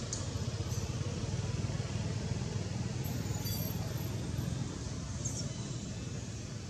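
Steady low rumble and hiss of outdoor background noise, with a few faint, brief high chirps.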